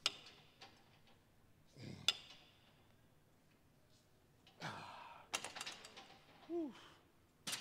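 A man's heavy sighs and exhales with a short voiced grunt near the end, broken by a few sharp clicks.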